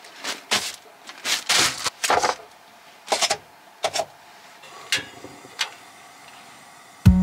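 Plastic and foam food containers handled and set down on a countertop, with plastic bags rustling: a string of separate light knocks, clicks and rustles, the longest rustle about one and a half seconds in. Guitar music comes in right at the end.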